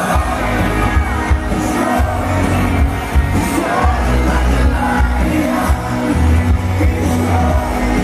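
Loud live band music over a PA with a strong pulsing bass, and a crowd singing along.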